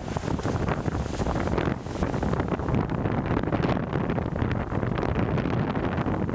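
Strong wind buffeting the microphone in steady gusts, with surf from the Atlantic faintly under it.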